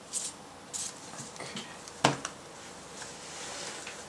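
Trading cards being handled at a table: a few short swishes of cards sliding, a sharp click about two seconds in with a lighter one just after, then soft rustling.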